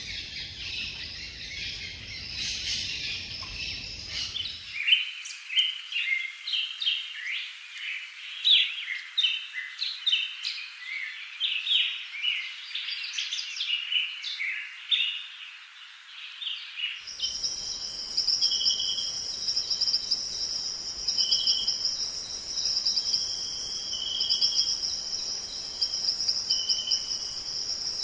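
Forest birdsong: many short, varied bird chirps and calls, busiest in the first half. About two-thirds of the way through the sound changes abruptly to a steady, high insect-like trill, with a short bird call repeating every couple of seconds.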